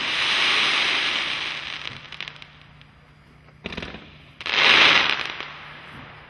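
Red Rhino Dark Magic 500-gram fireworks cake firing its final shots: dense crackling from gold crackle stars that fades out over about two seconds. A sharp shot comes about three and a half seconds in, then one more loud crackling burst that dies away.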